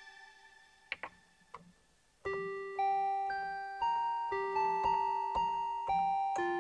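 Yamaha PSS-A50 mini keyboard: the last chord dies away and a few panel-button clicks follow. About two seconds in, a new phrase begins, a held low note with higher notes entering about every half second.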